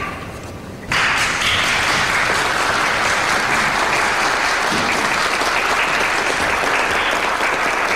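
A seated assembly applauding: dense clapping that breaks out suddenly about a second in and continues steadily.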